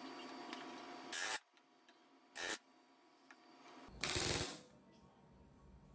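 Blue masking tape being peeled off an aluminium aircraft wing spar: three short rasping tears, the last one the longest.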